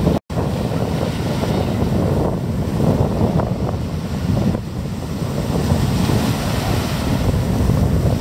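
Wind rumbling on the microphone over a steady wash of water, with a brief dropout a moment after the start.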